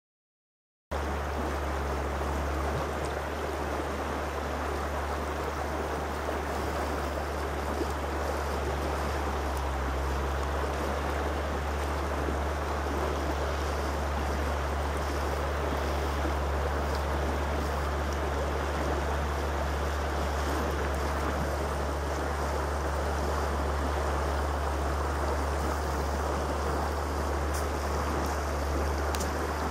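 River water rushing steadily over a shallow riffle, with a steady low rumble underneath. It starts after about a second of silence.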